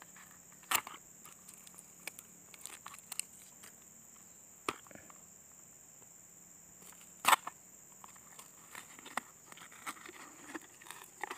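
Hands picking and peeling tape and plastic wrap off the end of a PVC pipe parcel: scattered small scratches and crinkles, with three sharp clicks, the loudest about seven seconds in.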